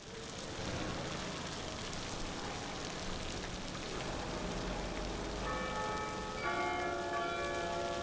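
A steady outdoor hiss, then church bells start ringing about five and a half seconds in, several notes of different pitch one after another.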